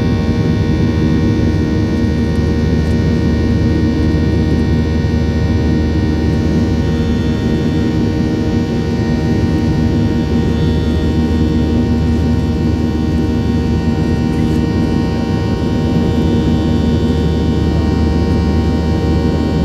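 Steady drone of a Boeing 737-800's CFM56-7B turbofan at climb power, heard from inside the cabin next to the number one engine: a low rumble with many steady whining tones held level throughout.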